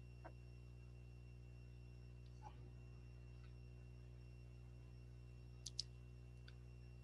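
Near silence with a steady low electrical hum. Two short, sharp clicks come in quick succession near the end.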